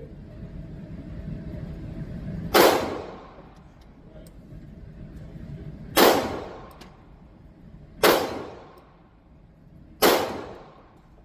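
Four single shots from a MAC 9 DS pistol, fired slowly: one about two and a half seconds in, then three more about two seconds apart. Each shot is loud and rings out briefly.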